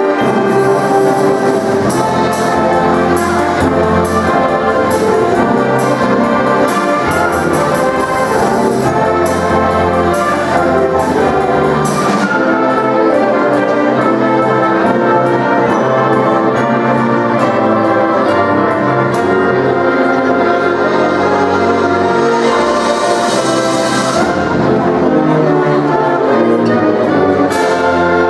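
A high school symphonic band playing a Christmas medley, the full wind band with brass prominent, with sharp percussive strikes through roughly the first twelve seconds and a hissy swell about twenty-three seconds in.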